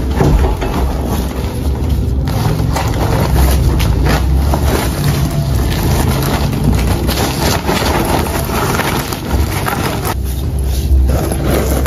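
Loud, steady low rumbling noise with a hiss over it.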